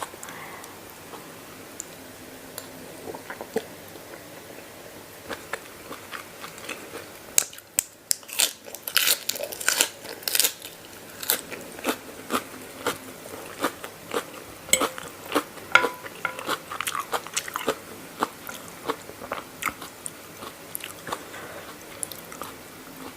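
A person eating homemade mee yum, a spicy rice-noodle salad, close to the microphone. Soft chewing at first, then from about seven seconds in a long run of loud, crisp crunching bites.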